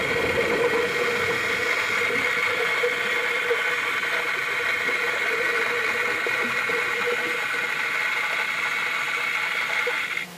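Steady mechanical hum and whine heard underwater, several high tones held level throughout, cutting off suddenly near the end.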